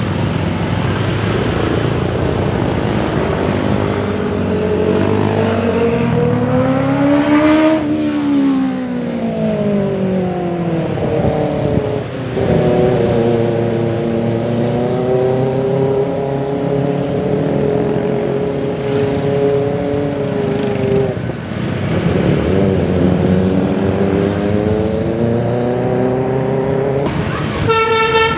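A bus's basuri telolet horn sounds long tones that slide slowly up and down in pitch over the rumble of the bus engine and road. Near the end it breaks into a quick run of short stepped notes.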